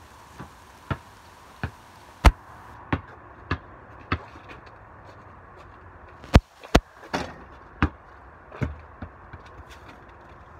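Basketball bouncing on a concrete driveway as it is dribbled: a run of sharp bounces about every half to two-thirds of a second, a pause of about two seconds, then several more, uneven in loudness.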